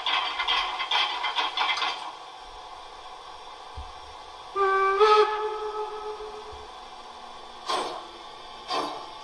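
Sound decoder of a gauge-1 class 64 steam locomotive model playing rhythmic steam chuffs for about two seconds. After a short pause comes a steam whistle of about two seconds that steps up in pitch partway through, followed near the end by two short hisses of steam.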